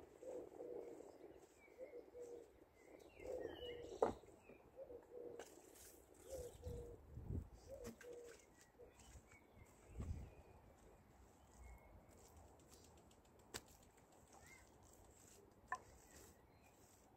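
Faint birds calling outdoors: short low notes repeated in small groups through the first half, with a few higher chirps a few seconds in. Soft low thuds from wet mud daub being pressed into a wattle bed by hand, and a sharp click about four seconds in.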